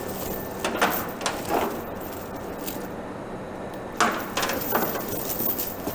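Steel chain rattling and clinking in several short bursts as a homemade tire chain is pulled over the top of a tractor's rear tire, the loudest burst about four seconds in.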